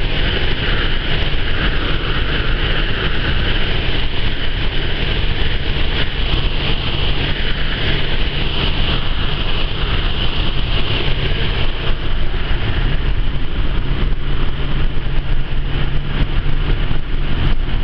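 Citroën Traction Avant on the move, heard from inside the cabin: the engine running steadily at cruising speed under an even rush of road and wind noise.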